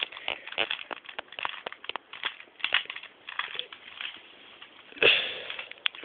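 Plastic Rubik's Cube being turned quickly by hand: an irregular run of light clicks and clacks as the layers are twisted. About five seconds in there is a brief louder rush of noise.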